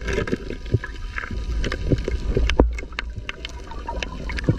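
Underwater sound: a steady low rumble of moving water with scattered sharp clicks and knocks, several each second.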